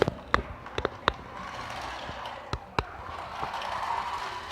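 Remote-control toy car driving: sharp knocks and thuds, about five in the first three seconds, as it bumps and rattles over things, then its small electric motor whirring louder near the end.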